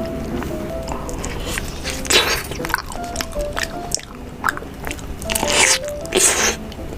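Close-miked biting and chewing of honeycomb, with a few loud wet crunches about two seconds in and again around five to six seconds, over background music with a simple stepped melody.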